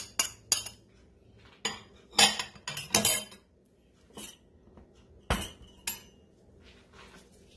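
A metal fork clinking and scraping against a ceramic bowl as the last of the beaten eggs are scraped out: three quick taps, then louder clinks and a scrape a couple of seconds in, and a single sharp knock later on.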